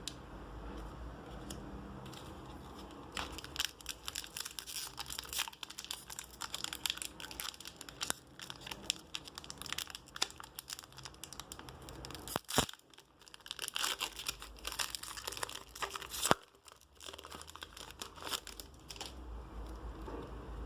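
Plastic packaging of a Magic: The Gathering pre-release kit being torn open and crinkled by hand: a long stretch of crackling and rustling, with two sharp snaps, the loudest sounds, in the second half.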